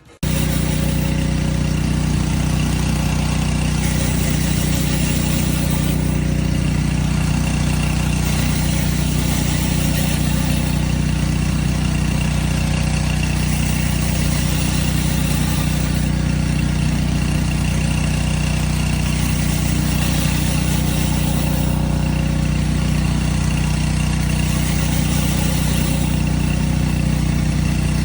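Pull-start gas pressure washer engine running steadily at constant speed, with a dense hiss over its drone.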